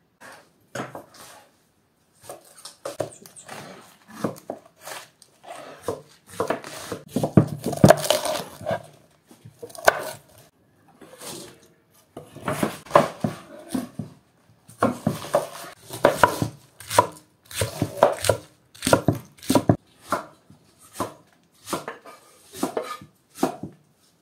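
Knife chopping cabbage on a wooden cutting board: irregular knocks, at times several a second in quick runs.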